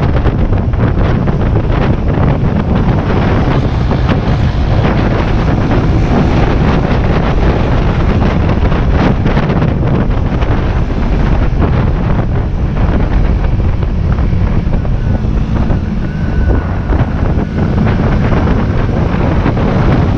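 Wind buffeting the microphone of a motorcycle-mounted camera at about 60 km/h, a loud steady rush with constant flutter, over the motorcycle's engine running.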